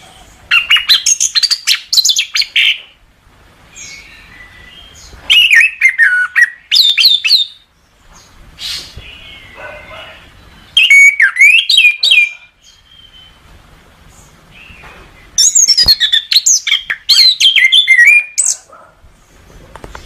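Chestnut-capped thrush (anis kembang) singing: four bursts of rapid, sliding whistled phrases, each a couple of seconds long, separated by pauses of a few seconds.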